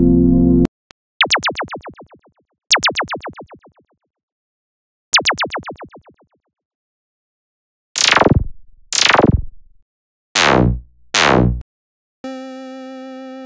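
Voltage Modular software synthesizer preset sounds. A held note cuts off, then three short notes die away with a fast fluttering repeat. Next come four quick falling laser-like zaps, and a quieter steady held tone comes in near the end.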